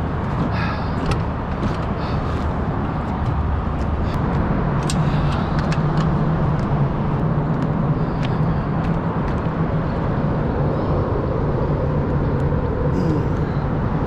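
An engine idling steadily: a low, even hum over a rushing wash of noise, with a few faint clicks in the first seconds.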